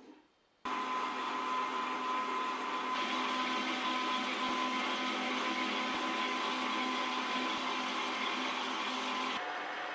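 Metal lathe running with a steady hum and whine, starting abruptly under a second in; from about three seconds in a louder hiss of the cutting tool turning the hammer head blank rides over it, easing off shortly before the end.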